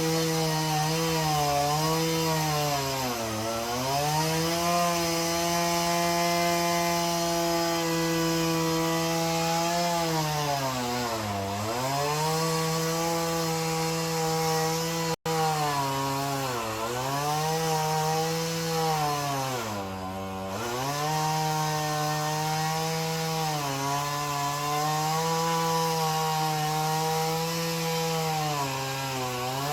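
Gas chainsaw running at high revs while cutting a tree limb. Its pitch drops several times as the chain bogs under load in the cut, then climbs back.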